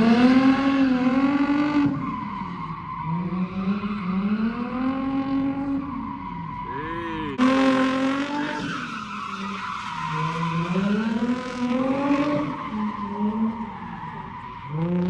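Drift car engine revving up and down in repeated waves, with tyres skidding and squealing as the car slides.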